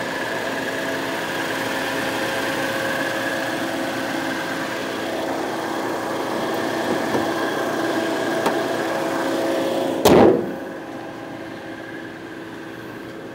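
2011 Scion xB's 2.4-litre variable-valve-timing four-cylinder engine idling steadily with the hood open. About ten seconds in, the hood is slammed shut with one loud bang, and after it the idle sounds quieter and muffled.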